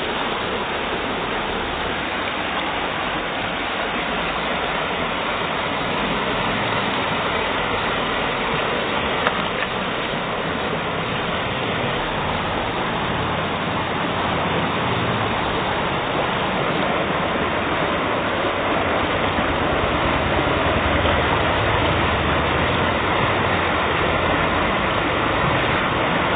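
Fast river water rushing over stones: a steady, even rush that grows slightly louder over the stretch.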